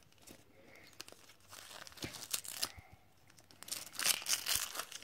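Wrapping paper being torn and crinkled by hand as a small gift is unwrapped, the rustling and tearing coming in uneven spells, loudest about two seconds in and again near the end.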